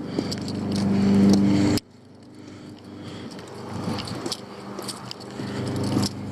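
Motor vehicle engine running nearby with a steady low hum that grows louder, cuts off suddenly a little under two seconds in, then swells again. Light clicks and jingles sound over it.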